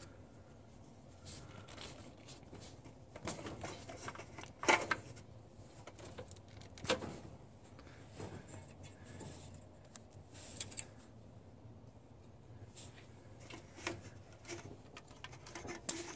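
Scattered light clicks and knocks of hand tools and metal fittings while a carburetor is being unbolted and disconnected, with a few sharper knocks spread through, over a faint low hum.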